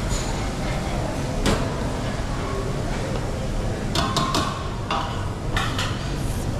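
Clinks of plates and serving utensils over the steady din of a busy buffet restaurant: a single click about one and a half seconds in, a cluster of ringing clinks about four seconds in, and a few more near the end.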